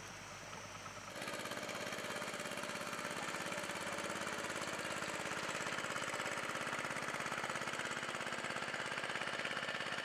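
Engine running steadily with a fast, even pulse, starting abruptly about a second in. Before it, a faint steady background with thin high insect-like tones.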